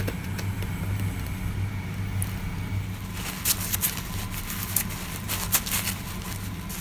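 Paper towels crinkling and rustling as a wet rusty bolt is wiped on them, in scattered sharp crackles from about three seconds in. Under it runs a steady low hum from a running machine.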